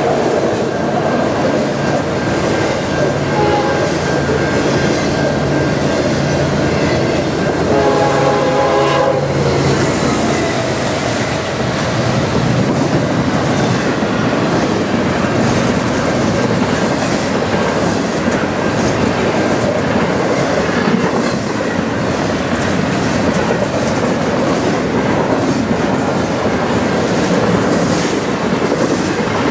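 Norfolk Southern freight trains passing at speed close by: a steady rumble and clatter of steel wheels over the rail joints from autorack and double-stack intermodal cars. About eight seconds in, a locomotive air horn sounds one chord for a second or two.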